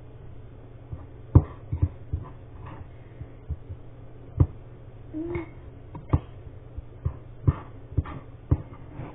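Spoon knocking and clicking against a bowl while slime is stirred, in irregular sharp taps, with one short high whine about five seconds in.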